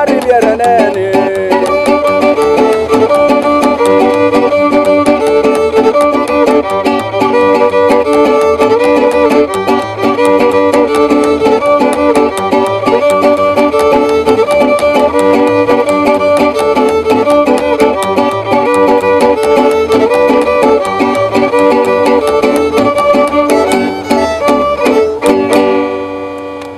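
Huichol string trio playing an instrumental cumbia. A violin carries the melody over a strummed small guitar and an upright bass. The music fades out near the end.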